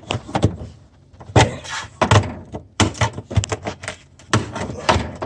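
Ice being scraped and chipped out from under the crisper drawer of a Samsung RF23HCEDBSR refrigerator: a series of irregular scraping strokes and knocks against the fridge's plastic. The ice has built up from water that keeps pooling and freezing there.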